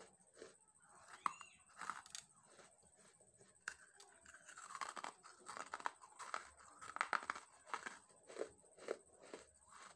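Close-miked biting and chewing of dry red clay lumps: sharp crunches at irregular intervals as pieces are bitten off and ground between the teeth.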